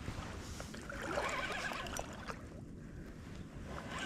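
Shallow creek water sloshing and splashing as a hooked bass is played and reeled in, with a few light clicks.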